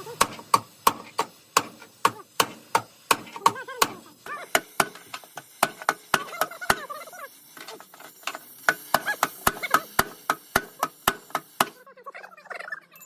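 Repeated sharp hammer strikes, about three a second, in a steady run that stops about twelve seconds in.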